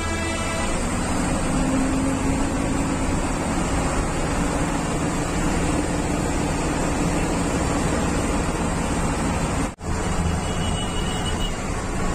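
Steady engine and road noise of a bus heard from inside its cabin, with the audio cutting out for a split second near the end.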